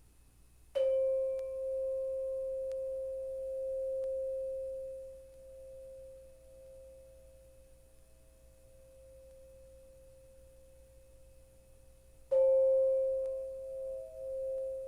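A singing bowl struck twice, about eleven seconds apart, each strike ringing on as a clear sustained tone that slowly fades; the second ring wavers with a slow pulse.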